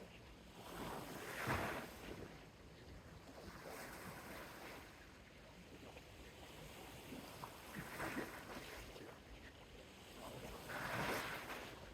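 Small, soft sea waves washing onto a beach. The wash swells three times: about a second in, around eight seconds, and near the end, with the first the loudest.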